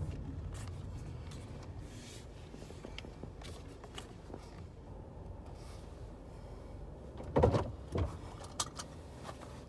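Car cabin noise while driving: a steady low rumble of engine and road, with two loud knocks about half a second apart and a sharp click near the end.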